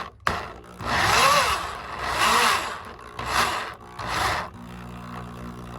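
Power drill driving a short square-drive screw slowly, in four short bursts whose whine rises and falls with the trigger, then running more steadily and quieter near the end.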